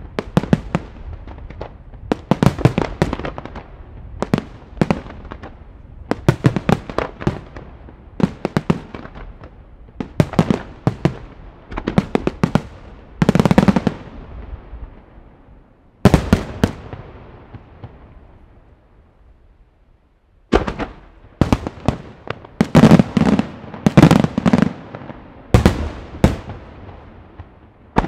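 Aerial fireworks shells launching and bursting in a fast volley, a dense run of sharp bangs and reports. The bangs thin out and fade for a few seconds past the middle, then a heavy salvo of the loudest bangs follows.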